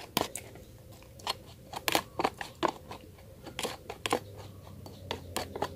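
Metal spoon scraping and clicking irregularly against the inside of a thin plastic cup, mashing shrimp paste into a little liquid to dissolve it.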